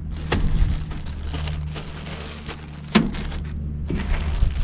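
Seed packets being handled and rustled, with two sharp knocks, about a third of a second in and about three seconds in, over a steady low rumble.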